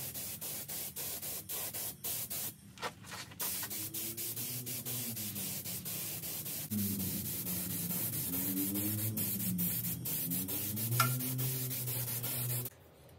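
Compressed-air paint spray gun hissing in quick bursts, the hiss broken by many short gaps, over a low hum that wavers in pitch. It all cuts off suddenly near the end.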